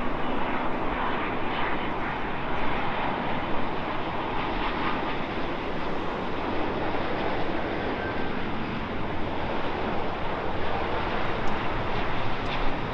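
Airbus A350's Rolls-Royce Trent XWB jet engines as the airliner passes on its landing approach: a steady jet rumble and hiss.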